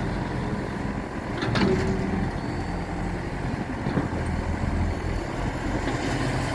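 Excavator engine running steadily while it works, with two short knocks, one about a second and a half in and another near four seconds.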